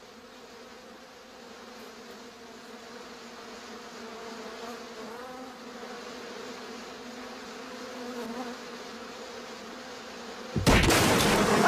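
Swarm of bees buzzing steadily, slowly growing louder. A sudden loud crash breaks in near the end.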